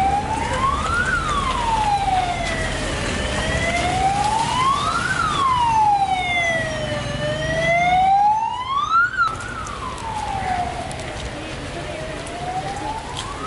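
Siren wailing, its pitch slowly rising and falling with a full cycle about every four seconds.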